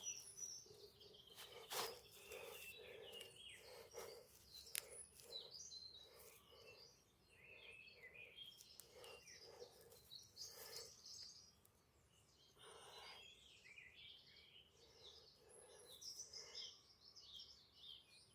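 Faint birdsong over near-silence: scattered chirps and short phrases, with a few faint clicks.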